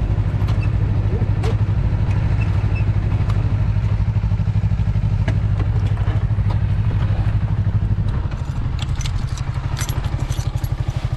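Sport motorcycle engine running at a steady pace, heard from the rider's seat. About eight seconds in, the steady note drops to a lower, pulsing beat as the revs fall.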